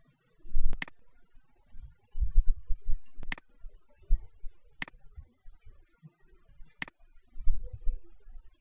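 Four sharp computer mouse clicks, spaced about one and a half to two seconds apart, with soft low thumps between them.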